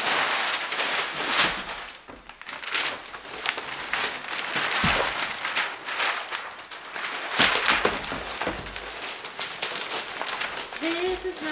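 Wrapping paper being unrolled and handled: a continuous paper rustle and crinkle with frequent sharp crackles.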